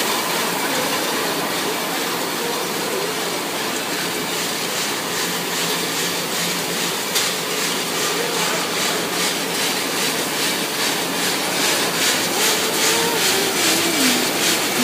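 Automatic cough-drop and caramel forming line running with a steady mechanical clatter that becomes a regular, evenly spaced clicking in the second half.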